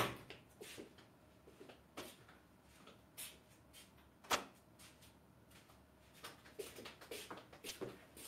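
Quiet small room with scattered light knocks and clicks as a person moves about and handles things, the sharpest about four seconds in and a cluster of smaller ones near the end.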